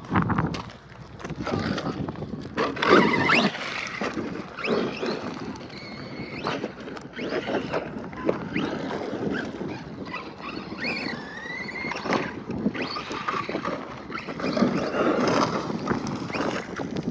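Arrma Kraton 4S V2 RC truck driving hard over rough ground, its brushless motor whining up and down with the throttle amid repeated knocks and clatter from bumps and landings. Wind buffets the microphone.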